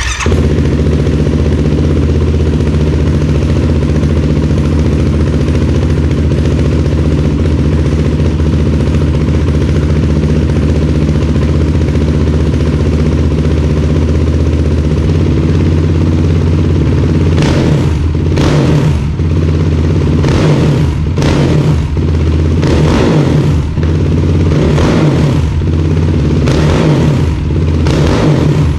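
Yamaha YFZ450R's single-cylinder four-stroke engine idling steadily, its idle held by a manual idle adjuster fitted in place of a failing IAC valve. From about halfway, the engine note swells in short surges every second or so.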